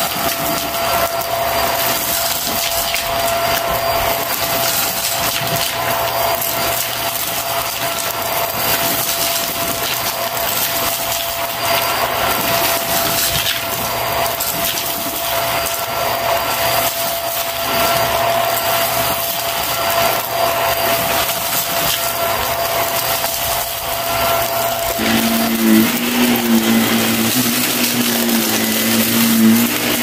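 Vacuum cleaner running steadily, with the crunchy crackle of confetti and grit being sucked up off a shag rug. About 25 seconds in, its steady tone shifts lower.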